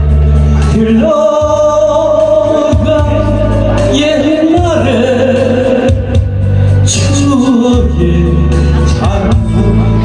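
A man singing a Korean trot song into a microphone over a backing track with a heavy, pulsing bass, holding long notes that slide between pitches.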